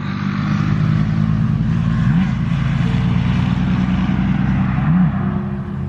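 A motor vehicle's engine running loudly with a hiss of tyres on the road. Its pitch dips and recovers briefly twice, and the sound eases off near the end.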